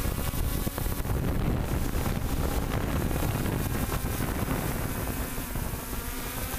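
Multicopter's electric motors and propellers running, heard through the onboard camera's microphone with heavy wind buffeting; a faint steady motor whine comes through more clearly in the second half.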